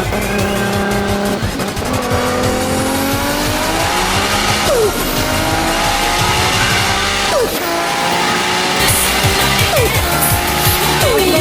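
Car engine revving over music with a beat. Its pitch climbs steadily and then drops sharply several times, as at gear changes.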